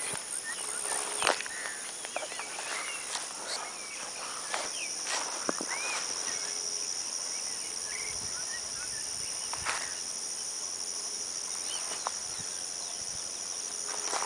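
Steady high-pitched drone of insects with scattered short chirps throughout, and a few footsteps and brushes through the grass.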